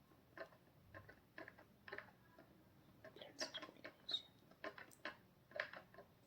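Faint, irregular soft clicks from hands massaging an oiled scalp and hair, about two a second.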